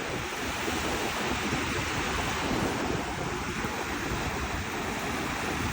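Mediterranean surf washing steadily onto a sandy beach, with wind buffeting the microphone in a low, uneven rumble.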